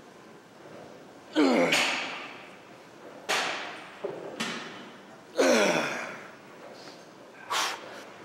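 A man's forceful exhalations and strained grunts, one about every two seconds, some falling in pitch as they trail off: effort breaths with each rep of heavy dumbbell biceps curls.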